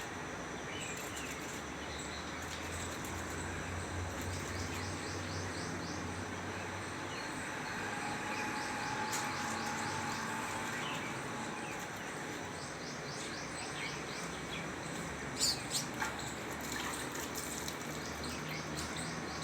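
Steady outdoor background noise, with a bird's rapid chirping trills several times over, and a few sharp clicks about three-quarters of the way through.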